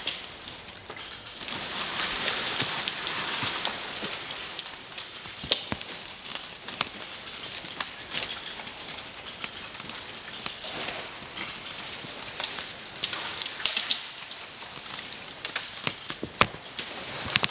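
Irregular crackling and sharp clicks while an oak is winched over with a hand come-along, its roots pulling out under the strain. A louder rush of rustling noise about two seconds in.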